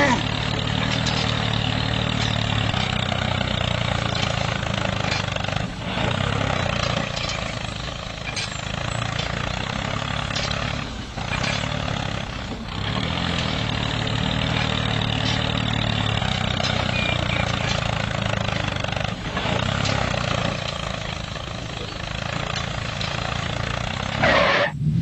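Miniature tractor's engine sound running steadily at a low, even pitch while it pulls a cultivator through sand, dipping briefly a few times.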